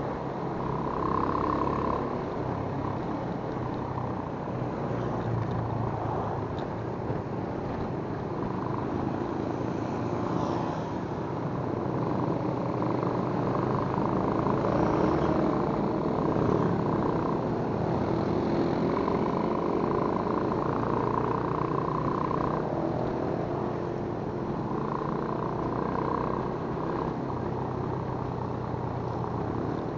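Motorcycle engines running while riding in a group, with wind and road noise. The engine note rises and falls a little with speed.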